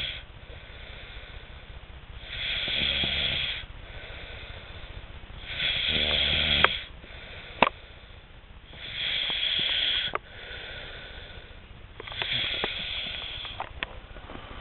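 A sleeping person snoring loudly, like a chainsaw: the tail of one snore, then four full snores, one about every three seconds, with quieter breathing between. A couple of sharp clicks midway, just after the third snore.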